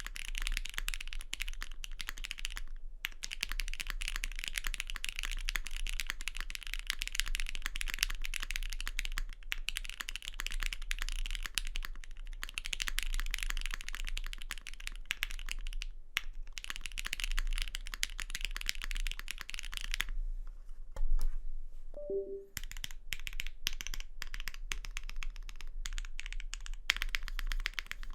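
Continuous fast typing on a custom E7-V2 mechanical keyboard with a polycarbonate case and plate, Gateron Box Ink linear switches lubed with Krytox 205g0, GMK Frostwitch keycaps and Zeal stabilizers: a dense run of key clacks. About two-thirds of the way through, the typing stops for about two seconds, broken by one louder knock.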